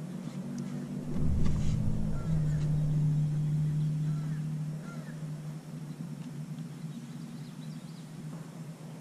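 Small electric trolling motor humming steadily. It gets louder with a low rumble about a second in, then settles a little lower in pitch and fades back over the next few seconds.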